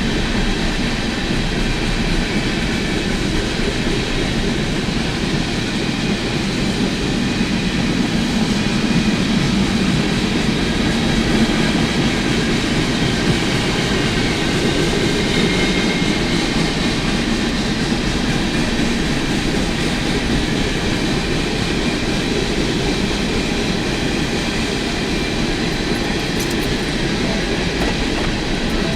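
CSX freight train rolling past: a steady sound of freight cars' steel wheels running on the rails.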